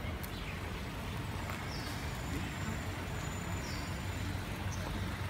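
A Toyota sedan rolling up slowly and stopping, its engine giving a steady low hum. A few short high chirps sound over it.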